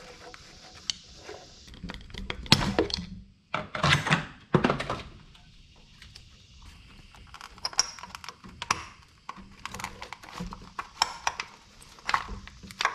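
Scattered knocks, clicks and rattles of metal parts being handled in an engine bay as the camshaft thrust plate is worked out of the back of a Honda R18 cylinder head, with a few louder knocks a few seconds in.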